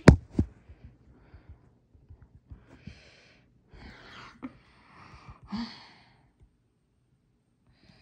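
Two sharp knocks at the start, then several soft breathy puffs of a person breathing close to the microphone.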